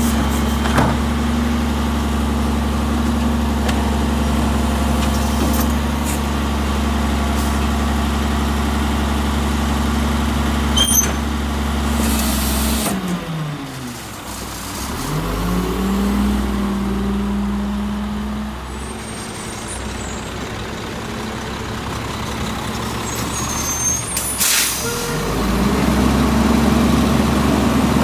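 Garbage truck's diesel engine running steadily, with two short air-brake hisses, about halfway through and near the end. Between them the engine pitch drops away and then climbs again, and the engine grows louder toward the end.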